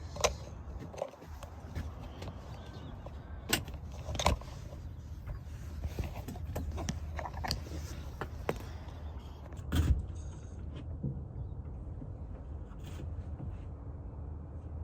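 Knocks, clicks and rattles of fishing gear being handled aboard a small boat, a handful of sharp clunks spread through, over a steady low rumble.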